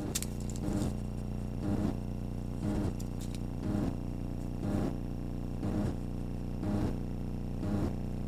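Steady electrical hum from the trail camera's own recording, with a soft, very regular pulse about once a second.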